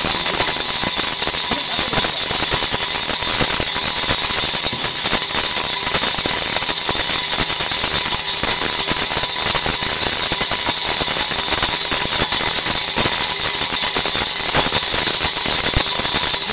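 On-car brake disc lathe turning a brake rotor on the hub while its tool bits skim both faces of the disc: a steady, grainy cutting hiss with a faint steady whine.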